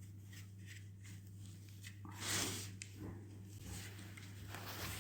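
Quiet handling noise: a few faint clicks and a brief rustle about two seconds in, over a low steady hum.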